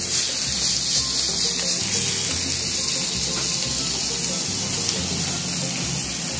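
Steak and chunks of root vegetables sizzling in a hot cast-iron skillet, a steady hiss, with background music and its slow bass line underneath.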